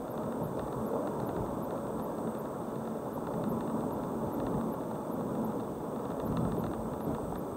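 Car driving along a road: steady road and engine noise.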